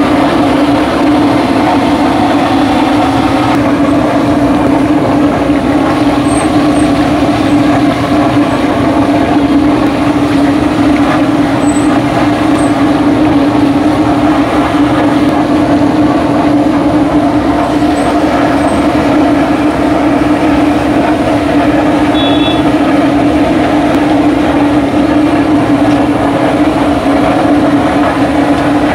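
Loud, steady roar of the burner under a large wok of hot oil, with the oil sizzling and bubbling as battered fish pieces deep-fry.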